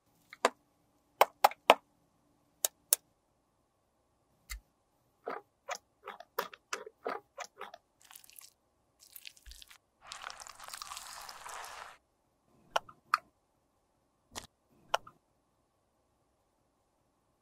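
Sharp clicks and taps of plastic and metal cosmetic containers being handled. A quick run of clicks comes as a pump top is worked off a foundation bottle, a hiss lasts about two seconds about ten seconds in, and a few more clicks come as a cushion compact is opened.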